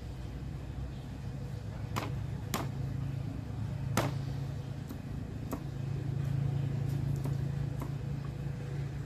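A large knife chopping on a thick wooden chopping block: a series of irregular knocks, the loudest about four seconds in. A steady low drone runs underneath.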